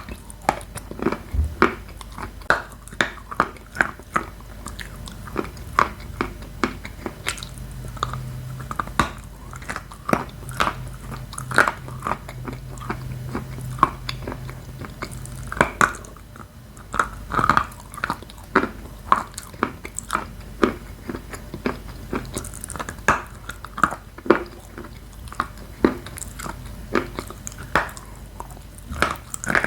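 Someone chewing Khrapovsky edible chalk with Astana clay, close to the microphone: steady, crisp crunches, about two or three a second, as the dry, very crunchy chalk breaks between the teeth.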